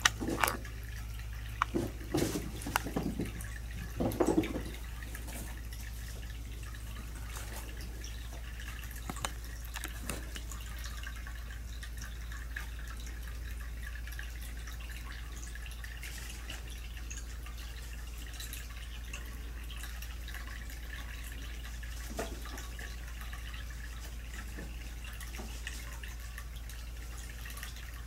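Soft knocks and scratchy taps of kittens playing on a cardboard scratch pad, clustered in the first five seconds, with scattered faint ticks later, all over a steady low hum.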